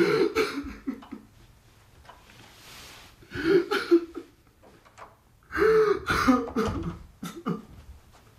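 A person coughing and clearing their throat in three bouts, about three seconds apart.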